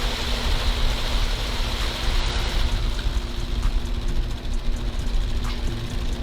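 Steady low rumble with an even hiss over it and a faint steady hum, an engine-like running noise.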